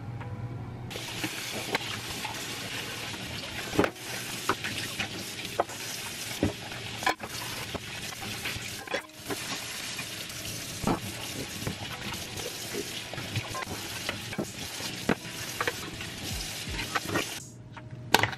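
Kitchen tap running steadily into a stainless steel sink, with scattered knocks and clinks of things being handled. The water comes on about a second in and shuts off shortly before the end.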